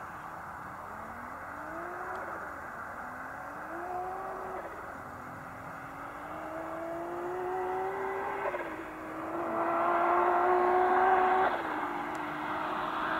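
Turbocharged Volkswagen VR6 engine accelerating hard through the gears as the car approaches. The pitch climbs, then drops back at each of about four upshifts, and the sound grows louder near the end.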